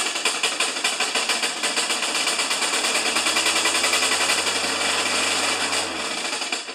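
Briggs & Stratton Quantum single-cylinder engine on a Craftsman push mower running with a fast, rattling clatter, then cutting out at the very end. It is the banging noise that sounds like a death rattle, which the mechanic thinks may be the blade banging on something.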